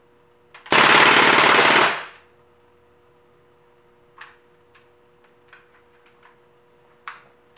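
Crosman A4-P CO2 air pistol firing a single full-auto burst of rapid shots, lasting about a second and a half, with its blowback action cycling. A few faint separate clicks follow.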